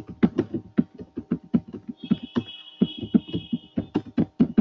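Computer keyboard typing: a quick, uneven run of keystroke clicks, about four or five a second, with a thin high tone joining for a couple of seconds in the middle.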